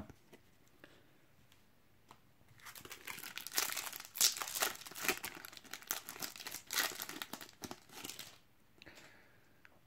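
A foil trading-card sachet crinkling and tearing as it is ripped open by hand: a run of dense crackles starting about two and a half seconds in and lasting some five seconds.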